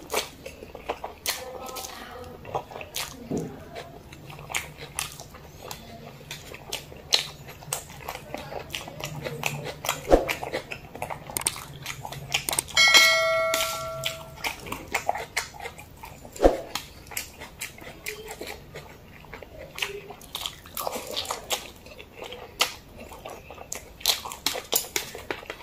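Close-miked eating of black-bean-sauce noodles: wet slurps, chewing and lip smacks, with clicks of metal chopsticks. About 13 s in, a short bell-like chime rings for about a second.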